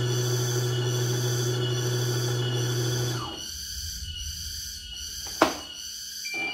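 CNY E900 computerised embroidery machine running its motor with a steady hum, which stops about three seconds in. A sharp plastic click follows near the end.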